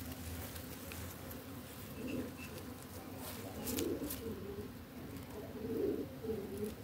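A dove cooing, a run of low repeated notes that start about two seconds in, with a few faint clicks.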